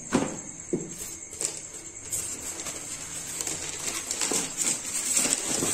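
Clear plastic wrapping and white foam packing being handled and rustled, with a few light knocks in the first second and a half and the crinkling growing louder after that.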